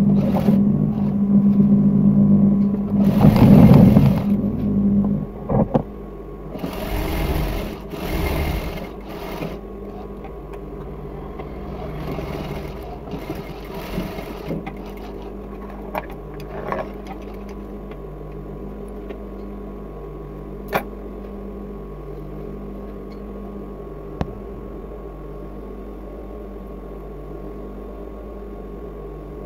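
Industrial straight-stitch sewing machine stitching in several bursts over the first nine seconds or so, with shorter, quieter runs a little later. After that only a steady hum is left, with a few sharp clicks.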